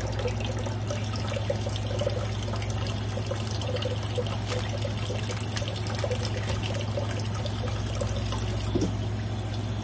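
Tap water running in a steady stream into a metal bowl of dressed quail, with light splashing as hands rinse the birds in it. A steady low hum runs underneath.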